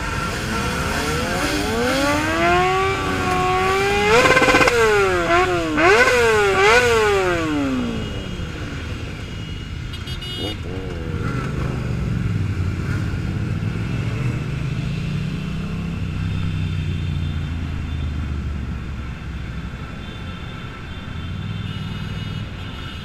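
Motorcycle engine revving: the pitch climbs over the first few seconds, then is blipped up and down several times and falls away about eight seconds in. After that, the low rumble of many motorcycles running at low revs in slow traffic.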